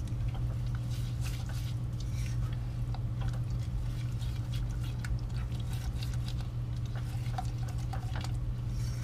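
Spoon stirring a thick butter, flour and sugar mixture in a saucepan, with small irregular scrapes and clicks, over a steady low hum.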